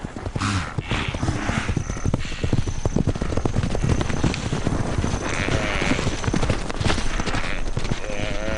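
A wildebeest herd stampeding, many hooves drumming fast on the ground as a lioness chases them. A few animal cries are heard over the hoofbeats, one wavering call about six seconds in and another near the end.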